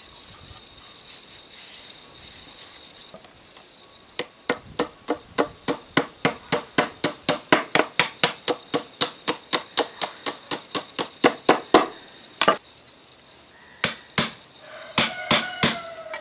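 Hammer tapping a bent metal grille piece on a wooden board to straighten it. About four seconds in, a fast, even run of light strikes starts, about four a second, and lasts about eight seconds. A few separate blows follow, and the last ones leave a short metallic ring.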